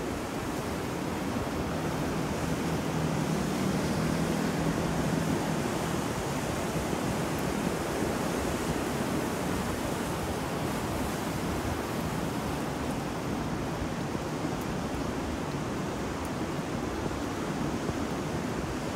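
Ocean surf and wind: a steady wash of noise that swells slightly a few seconds in and then holds even.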